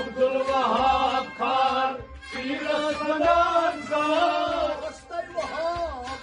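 A man singing a Kashmiri Sufi kalam with musical accompaniment, in long melismatic phrases that pause briefly twice.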